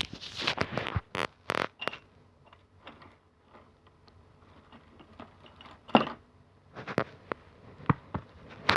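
Close handling noises: rustles, scrapes and sharp clicks, loudest in the first two seconds and again about six seconds in.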